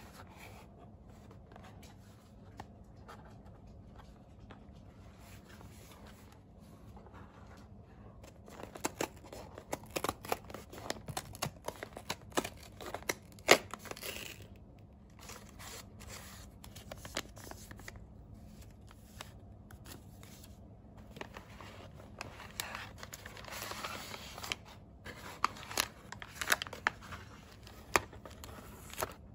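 Paper packaging being opened by hand: kraft paper and printed card rustling, crinkling and tearing, with sharp crackles. The handling comes in two busy stretches, the sharpest crack about halfway through, the second stretch near the end.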